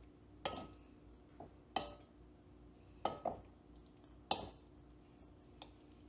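A metal spoon clinking against a dish while mixing sliced pork with its marinade: five sharp clinks about a second apart, two of them in quick succession in the middle.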